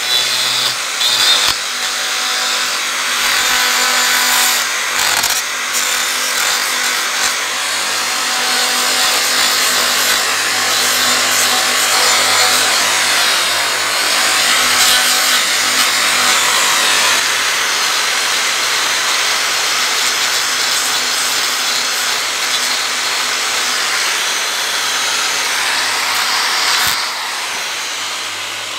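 Angle grinder with a toothed hoof-trimming disc running and cutting into a cow's hoof horn: a steady, loud grinding rasp that eases off slightly near the end.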